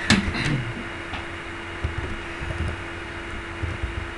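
Computer keyboard typing, scattered light key clicks over a steady electrical hum, with one short sharp sound right at the start.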